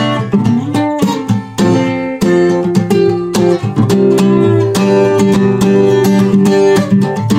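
Capoed acoustic guitar strumming and picking chords in an instrumental passage between sung verses.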